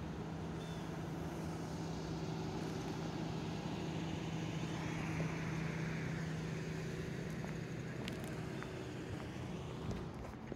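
A motor vehicle engine running steadily, a low even hum that drops away near the end.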